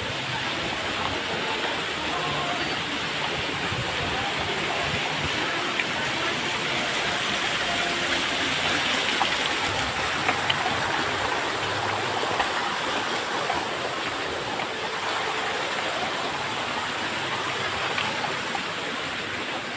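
A steady rush of running water, with faint voices now and then.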